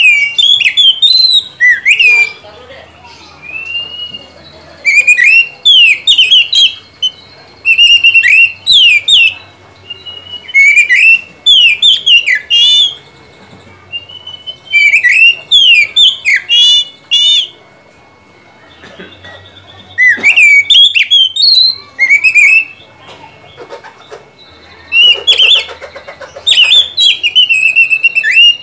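Oriental magpie-robin (kacer) singing: loud, clear whistled phrases with quick up-and-down slides, delivered in bursts every few seconds with short pauses between.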